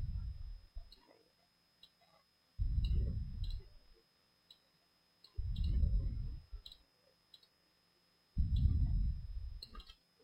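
Computer mouse clicking, faint and scattered. Four low, muffled puffs about three seconds apart are louder than the clicks.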